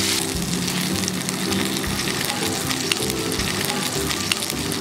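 Semolina-coated stuffed mackerel shallow-frying in hot oil: a steady sizzle with fine crackles and spits, with background music under it.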